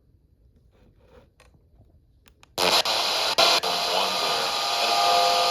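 FM radio being tuned between stations: near silence with a few faint clicks, then about two and a half seconds in, a loud steady hiss of FM static cuts in suddenly. Faint steady tones sit under the hiss near the end.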